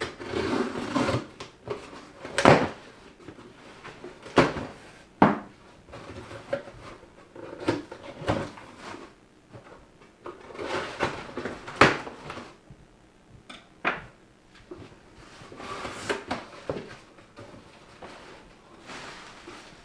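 A cardboard box and its packaging being handled and opened: bouts of rustling and scraping, broken by several sharp knocks and snaps.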